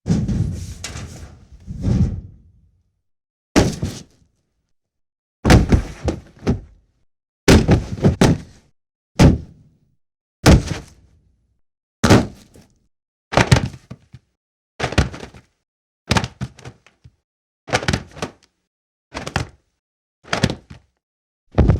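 Cinematic punch sound effects: a series of separate heavy hits, each a sharp crack over a low thud with a short tail, one every second or two, some coming in quick pairs.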